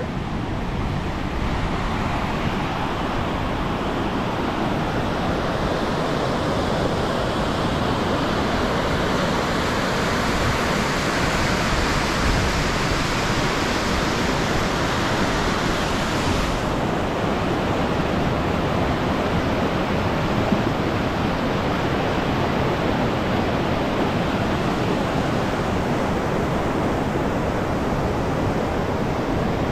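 Rushing white-water river, a loud, steady wash of water. It grows fuller and brighter toward the middle, and the high hiss drops away abruptly a little over halfway through, leaving a duller rush.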